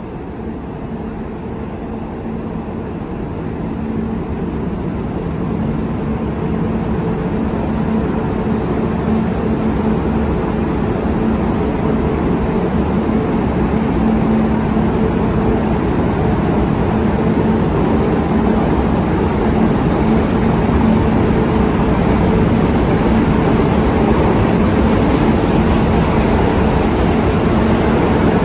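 Model train running on a layout: a steady running rumble with a low hum, growing gradually louder over the first several seconds and then holding steady.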